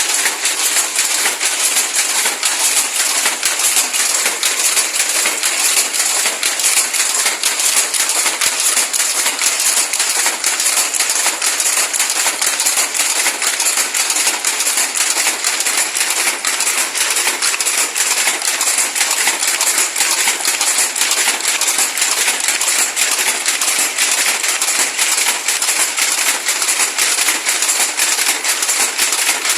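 Weaving loom running, a continuous fast clatter of mechanical clicks and knocks.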